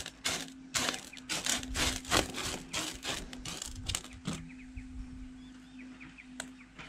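Washed sapphire gravel being pushed and spread by hand across a metal sorting sheet: pebbles scraping and clattering on the metal, busy for the first four seconds or so, then only a few scattered scrapes. A faint steady hum runs underneath.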